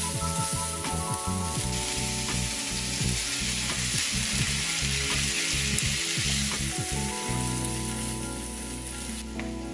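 Ground beef, onion and green peppers sizzling in a frying pan while a wooden spoon stirs and scrapes. The sizzle grows louder for a few seconds as chopped tomatoes go into the hot pan, then dies down near the end.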